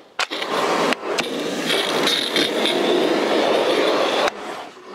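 Kärcher pressure washer spraying water over a car's engine bay: a short burst, a brief break, then a steady spray that cuts off suddenly. It is the wetting stage before traffic film remover goes on.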